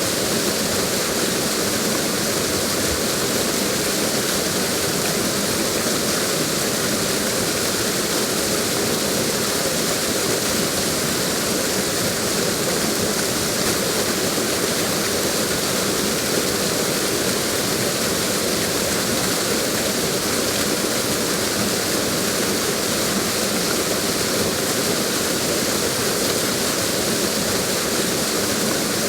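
Waterfall: water falling and splashing in a steady rushing hiss that does not change.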